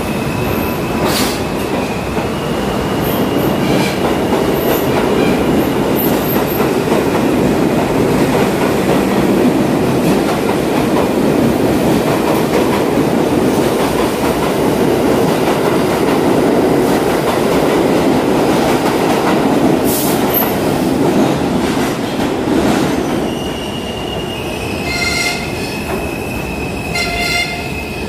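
A New York City Subway train of stainless-steel R32 cars runs past along the platform: a loud, steady rumble of wheels on rail with thin, high wheel squeal at times. About 23 seconds in the rumble drops, and two short high-pitched tones sound a couple of seconds apart.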